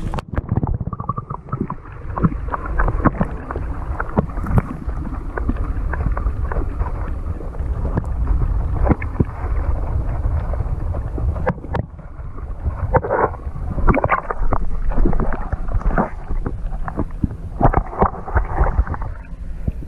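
Muffled water noise from a camera held under the lake's surface: a steady low rumble and sloshing with irregular knocks and clicks against the camera.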